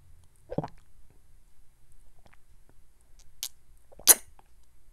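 Milk being drunk straight from a carton: short gulping and swallowing sounds, one about half a second in and two close together near the end, the last the loudest.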